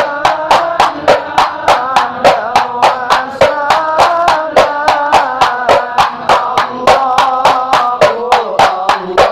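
Men chanting devotional sholawat verses together to hand-beaten rebana frame drums. The drums keep a steady beat of about three to four strikes a second.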